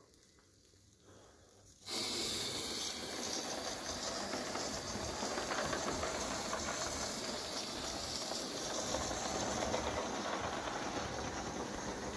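Steam hissing from a 1915 Bing gauge 1 live steam locomotive as it runs, a steady hiss that starts suddenly about two seconds in. Steam is escaping from the front of the locomotive.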